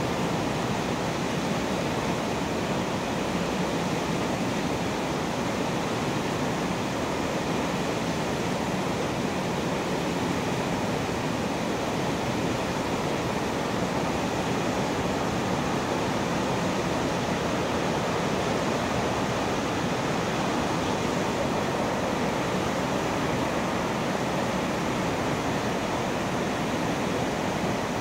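River water rushing through open sluice gates, a steady, unbroken wash of noise.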